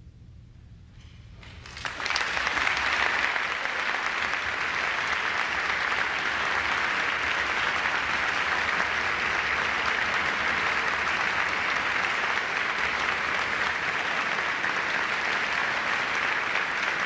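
Concert-hall audience breaking into applause about two seconds in, after a quiet moment, then clapping steadily and densely.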